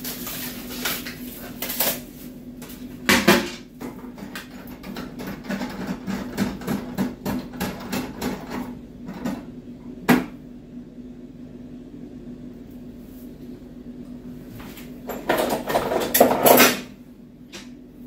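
Hands handling a chrome flush plate and its plastic fittings at the cistern frame: a run of small clicks, taps and rustles, with a louder knock about three seconds in, a sharp click about ten seconds in, and a longer stretch of rustling and scraping near the end. A low steady hum underneath.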